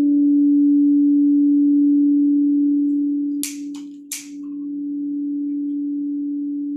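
A crystal singing bowl ringing on one steady, pure tone that lingers after it was played. About three and a half seconds in, three sharp clicks come close together, and the tone swells slightly again afterwards.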